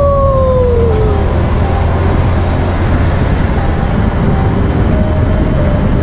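Steady low rumble of a vehicle on the road, with a tone sliding down in pitch during the first second.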